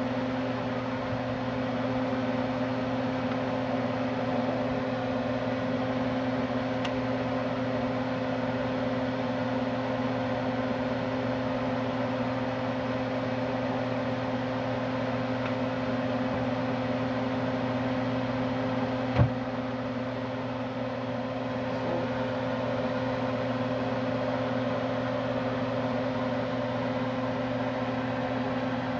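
Steady electric motor hum from a kitchen appliance, a constant low drone with even noise over it. One short knock about nineteen seconds in.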